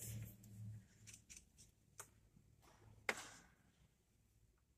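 Near silence with a few faint, sharp clicks, the loudest about three seconds in.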